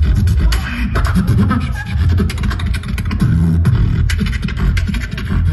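Live beatboxing amplified through a microphone and the club's sound system: fast, dense percussive clicks and snare-like hits over a deep, sustained bass line.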